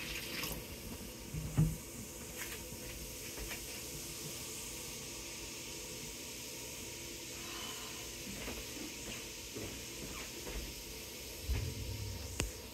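Baking soda and vinegar fizzing in a kitchen sink drain: a steady, faint crackling hiss from the foam. A couple of low thumps come about a second and a half in and again near the end.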